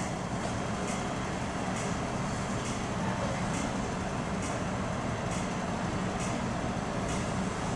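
Steady rumble of an MTR M-Train electric train at a station platform, with a faint high tick about once a second.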